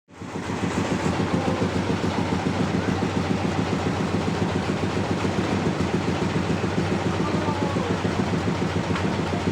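Sawmill engine running steadily with a fast, even pulse.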